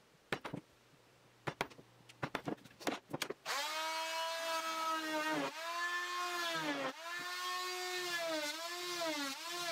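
A few sharp clicks and knocks of a hand chisel chipping at a wood block. About three and a half seconds in, a corded rotary tool starts and runs with a high whine that dips in pitch each time its bit bites into the wood, cutting out a notch.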